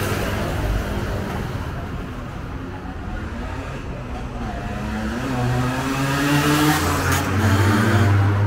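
A motor vehicle's engine running close by and revving up, getting louder toward the end over street noise, then cutting off suddenly.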